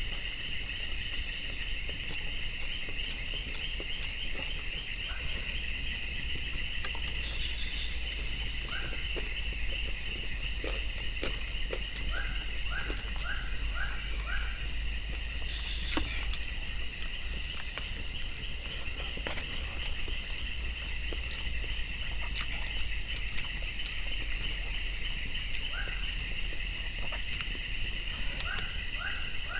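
Chorus of crickets and other night insects, with several high trilling, pulsing layers running steadily. Twice a short run of about five quick chirps from another animal rises above it, with scattered small clicks.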